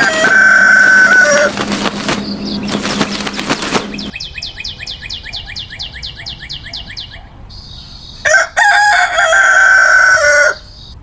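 A rooster crowing twice, once at the start and again about eight seconds in, with a quick run of short, falling bird chirps between the two crows.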